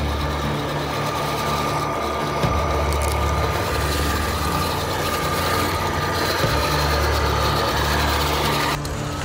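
Tracked six-wheel-drive RC truck with brushless electric motors driving over rocks, a steady motor-and-gear whine over the rattling clatter of its tracks. The whine stops near the end.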